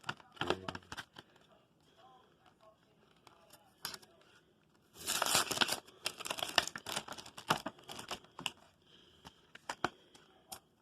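Foil Yu-Gi-Oh booster pack wrappers being handled: a few crinkles at the start, then after a quieter spell a dense run of crinkling and rustling, which may include a pack being torn open, from about halfway until shortly before the end.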